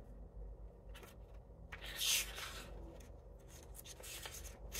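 Faint rustling of paper as oracle cards or guidebook pages are handled: a few soft brushes and one longer rustle about two seconds in.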